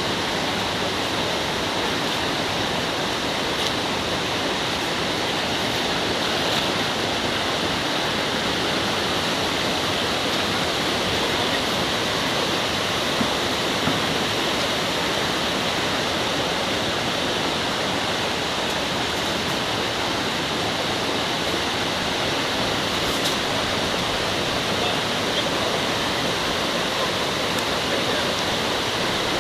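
Mountain stream water rushing over rocks, a steady, unbroken rush.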